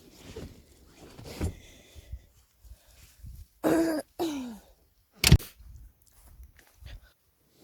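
Two short vocal sounds, each falling in pitch, like a cough or grunt, followed about a second later by one sharp knock, the loudest sound, with a fainter knock earlier on.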